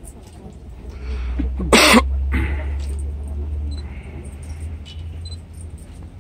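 A person's single loud cough a little under two seconds in, over a steady low rumble.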